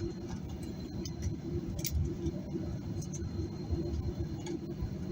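Cabin noise of a Boeing 737-800 on the ground before takeoff: a steady low rumble of the CFM56 engines at idle, with a faint steady high whine and a few faint clicks.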